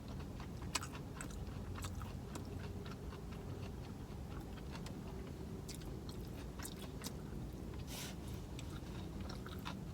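A person chewing a mouthful of fast food close to the microphone, with many small, irregular mouth clicks and smacks.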